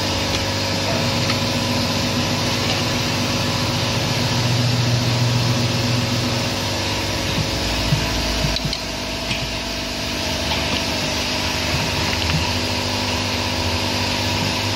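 A machine motor runs with a steady hum. A few short metal clanks and knocks come a little past halfway, as a steel tire bar levers an ATV tire's bead over the rim on a tire changing machine.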